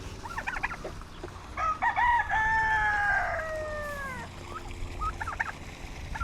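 A rooster crowing once, a long call beginning about a second and a half in whose held note falls away at the end. Short, rapid bursts of other poultry calls come just before and after it.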